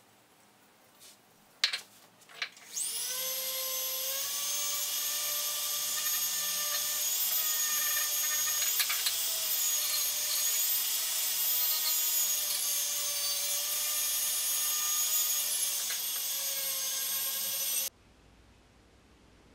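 Flexible-shaft rotary tool with a small green grinding stone spinning up with a quickly rising whine, then running at high speed as it grinds the steel of a saw-blade axe head; its pitch wavers slightly under the load, and it stops abruptly near the end. A few light clicks come just before it starts.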